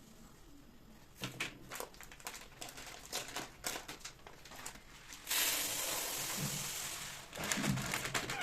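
Crinkling and rustling of packaging being handled, in scattered crackles, with a steady hiss for about two seconds midway.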